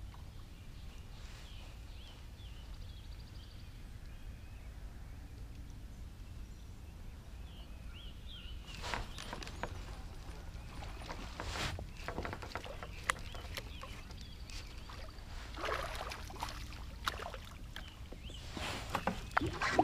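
Faint bird chirps over a low steady rumble. From about nine seconds in comes a run of clicks, knocks and rustles from a fishing rod and reel being handled in a kayak.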